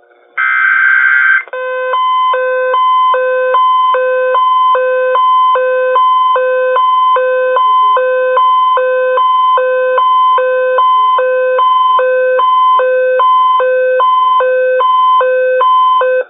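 Emergency Alert System alert tones: the last burst of the buzzy SAME header data, then a loud electronic two-tone alert signal alternating between a low and a high pitch an octave apart, about one cycle a second, cutting off sharply at the end.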